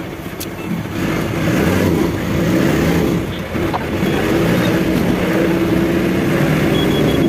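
Engine of a passenger van heard from inside the cabin, pulling away and speeding up about a second in, then running steadily with a brief drop near the middle.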